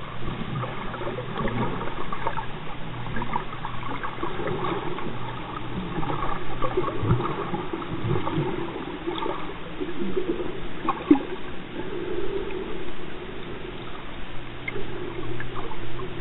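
Water moving around an underwater camera, heard muffled through its housing: irregular gurgling and sloshing with a few small clicks.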